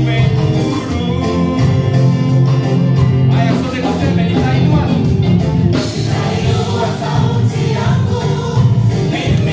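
Gospel worship song: several voices singing together over a band with a steady beat.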